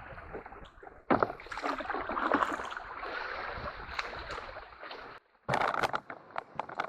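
Canoe being paddled: water splashing and swishing with the paddle strokes, then a short run of sharp knocks near the end.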